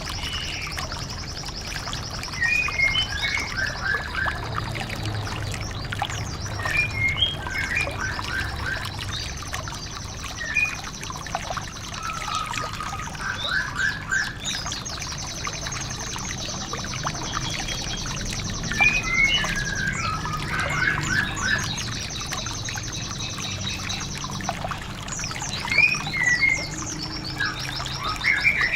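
Recorded songbird song used as a white-eye training track: long bouts of a rapid, high trill broken by short chirping phrases every few seconds, over a steady trickling-water background.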